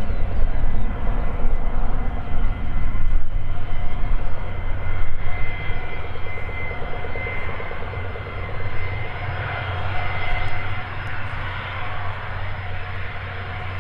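Gulfstream G450's twin Rolls-Royce Tay turbofans running at taxi power: a steady jet whine over a low rumble.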